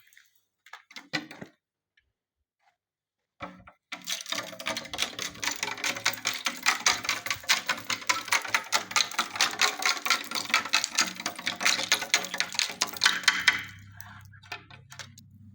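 Ice-glazed branches and twigs clinking and crackling in a rapid, dense clatter of sharp clicks with a glassy ring. It starts about four seconds in after a couple of stray clicks, lasts about ten seconds, then dies down.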